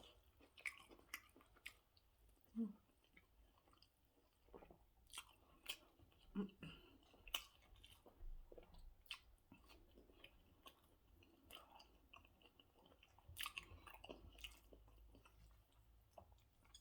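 Faint close-up chewing and mouth smacks of a person eating a meal of rice and stew, with irregular soft clicks.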